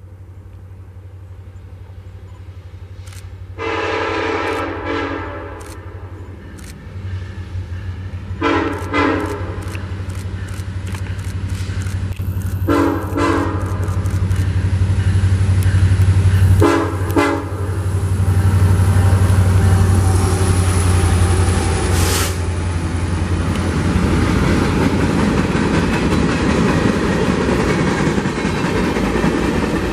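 A Union Pacific freight train's diesel locomotives approach and pass, sounding the air horn four times, the first blast the longest, for a crossing. The engines' low rumble grows louder, and in the second half it gives way to steady wheel and freight-car noise on the rails.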